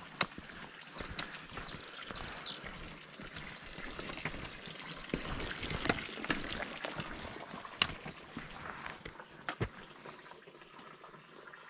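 Water pouring from a spout into a plastic barrel, a steady splashing trickle, with scattered knocks of footsteps on the rocky trail. It grows quieter near the end.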